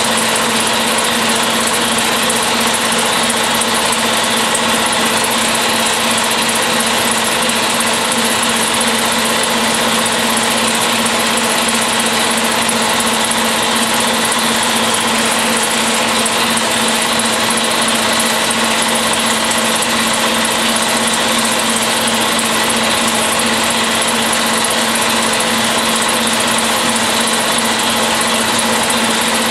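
Air compressor running steadily with an even, unbroken hum and whine.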